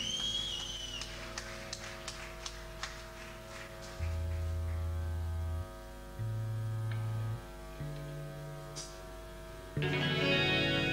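Live rock band in a sparse, droning passage: a sustained electric guitar drone with a few light ticks, under three long held low notes, each a step higher than the last. A fuller guitar chord comes in near the end.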